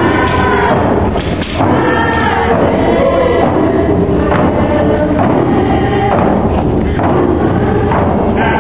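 Group of Nisga'a dancers singing a traditional dance song in unison, with the beat of hide frame drums.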